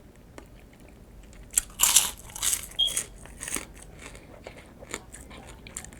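Close-up crunching and chewing of nacho chips, the loudest bites coming in a run about one and a half to three and a half seconds in, then softer chewing.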